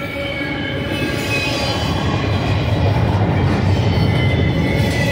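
Double-stack intermodal freight cars rolling past: a steady rumble of steel wheels on rail, with a high, steady wheel squeal ringing over it. The rumble grows louder about halfway through.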